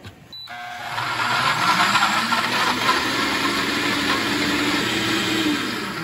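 Instant Pot countertop blender blending tomatoes, chipotle chiles and chicken broth into a sauce: a short beep, then the motor spins up within about a second and runs steadily, winding down near the end.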